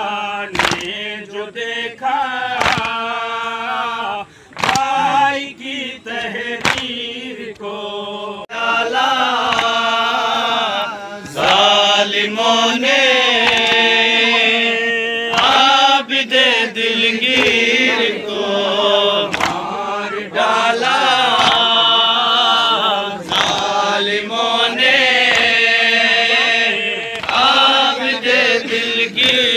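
Men chanting an Urdu noha (Shia mourning elegy) together in long, wavering sung lines, with sharp hand strikes keeping time about once a second. The chanting grows louder about eleven seconds in.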